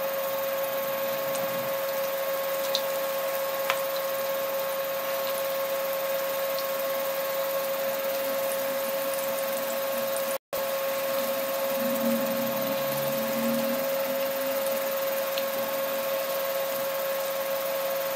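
Pakoras deep-frying in hot oil in a kadhai: a steady sizzle with a few small crackles, over a steady hum from the electric cooktop. The sound cuts out briefly about halfway through.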